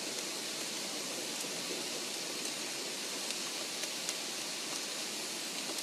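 Steady, even hiss with a few faint ticks scattered through it.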